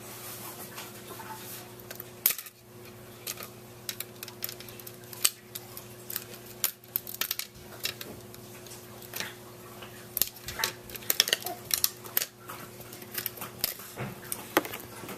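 Irregular sharp clicks and clatter of small plastic circuit-kit pieces being set down on, snapped onto and picked up from a plastic base grid, busiest past the middle. A steady low hum runs underneath.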